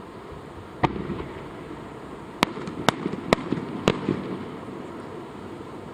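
Fireworks shells bursting overhead: one sharp bang about a second in, then four more in quick succession between about two and a half and four seconds in, each trailed by a rumbling echo.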